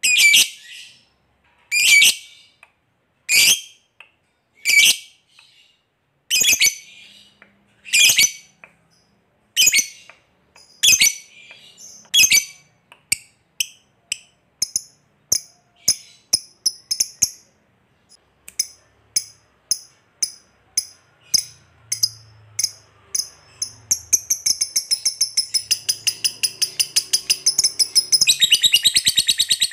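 A lovebird calling: sharp single shrieks about every second and a half, coming faster and faster until they run into a rapid series about 24 seconds in, then a dense continuous chattering trill near the end. This is the build-up from the 'ngetik' ticking calls into the long 'ngekek' chatter that lovebird keepers prize.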